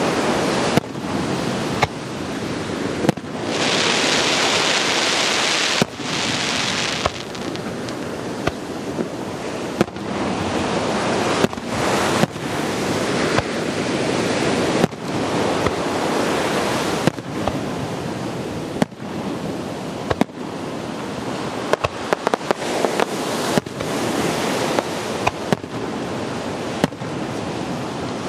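Aerial fireworks shells bursting in quick succession: many sharp bangs at uneven intervals over a continuous rushing noise, with a stretch of loud hissing from about four to seven seconds in.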